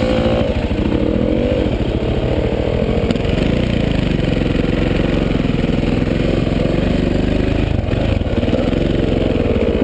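Dirt bike engines under way on a trail, the nearest one loudest, its pitch rising and falling with the throttle. The engine note changes about three seconds in and then runs steadily.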